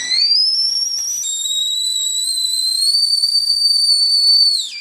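A loud, shrill whistling tone that slides up in pitch during the first second or so, holds steady, then drops away just before the end.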